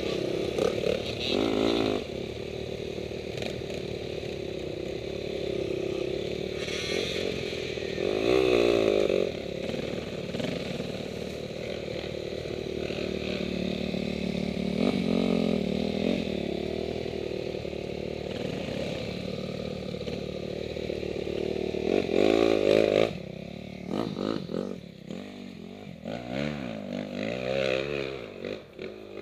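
Off-road dirt bike engine running and being ridden, its revs rising and falling with the throttle, with sharp bursts of revs about eight seconds in and again around twenty-two seconds, then quieter, choppier running near the end.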